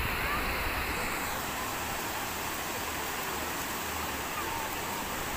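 Steady wash of surf breaking and running up a sandy beach.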